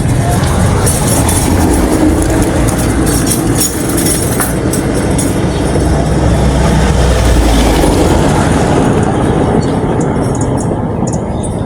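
Heavy vehicle rumbling past close by, a loud low rumble that swells a little past the middle and eases off near the end.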